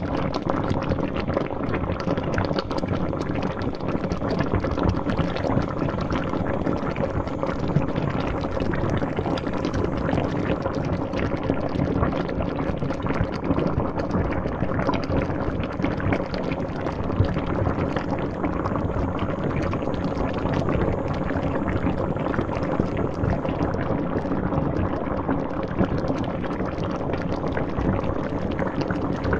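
A pot of water at a steady rolling boil, with a dense, continuous bubbling and popping.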